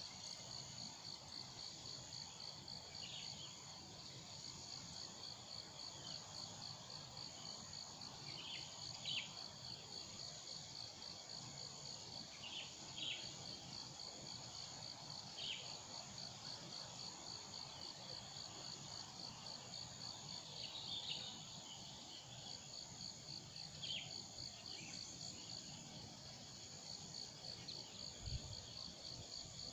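Insects trilling steadily in a fast, even pulse, with short bird chirps every few seconds and a brief low thump near the end.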